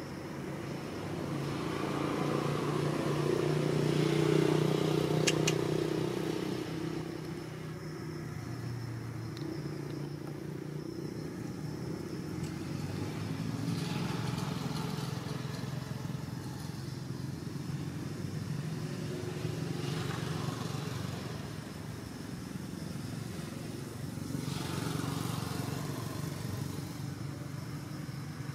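A motor vehicle's engine running, growing louder to a peak about four seconds in and then easing off to a steady lower hum, with a couple of faint clicks around five seconds.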